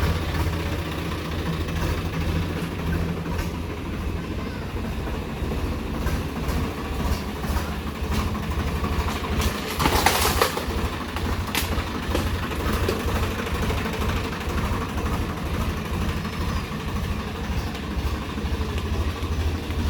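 Tractor diesel engine running steadily under load while working a rotavator. About halfway through there is a brief, louder, hissing burst of noise.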